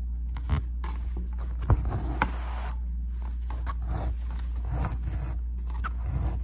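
Embroidery thread being pulled through fabric by hand, with scratchy rustling strokes and a few sharp clicks, over a steady low electrical hum.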